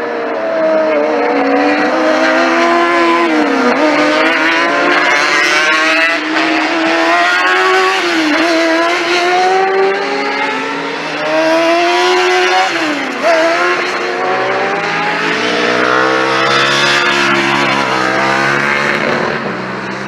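Sport motorbike engines at high revs on a race track. The pitch climbs and then drops sharply at each upshift, about every four seconds, three times. In the second half several engines overlap.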